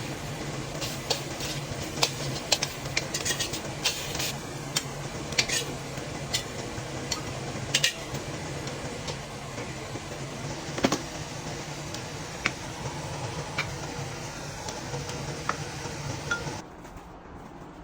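Utensils clinking and scraping against pots and dishes while food is stirred, over a steady background hum that cuts off suddenly near the end.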